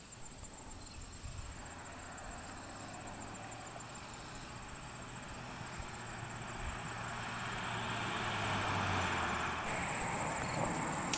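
Crickets chirring steadily. Over them a rushing noise with a low hum swells gradually and peaks about nine seconds in, as a passing vehicle would; the chirring grows louder near the end.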